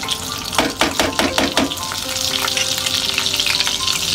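Butter sizzling as it melts in hot oil in a non-stick frying pan, with a quick run of pops about half a second to a second and a half in. The sizzle then grows thicker and steadier.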